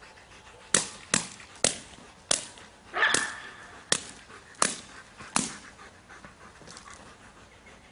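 Belgian Malinois barking at a decoy: a run of about eight sharp, loud barks, roughly one every 0.7 seconds, stopping about two thirds of the way through.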